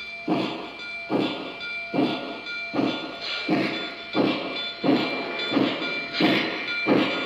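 Lionel Legacy O-gauge model of Nickel Plate Road Berkshire 765 running slowly, its onboard sound system playing steam exhaust chuffs at an even beat, about one every three-quarters of a second. A steady high tone runs underneath.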